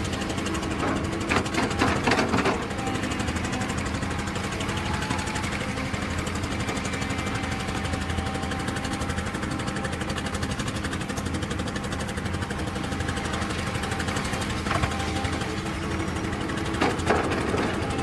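Heavy diesel earthmoving machinery running steadily with a fast, even engine pulse. Short louder bursts of noise come about a second in and again twice near the end.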